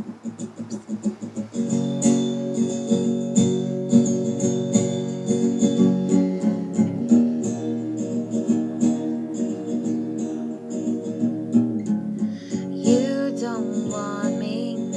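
Acoustic guitar playing the intro of a song, lightly at first, then strummed chords filling out from about a second and a half in. A woman's singing voice comes in near the end.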